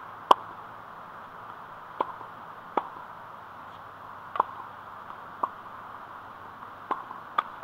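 Tennis ball struck and bounced with a racket on a hard court: about seven sharp knocks at irregular spacing, the loudest about a third of a second in, over a steady outdoor hiss.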